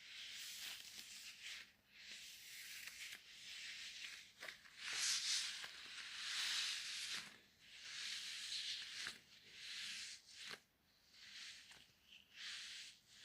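Plastic packaging rustling and crinkling as it is handled, in a string of short bursts about a second long with brief pauses between them.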